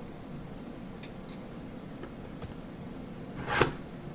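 Plastic wrap being pulled off a hockey card box: a few faint crinkles, then one louder, short crackling rip about three and a half seconds in.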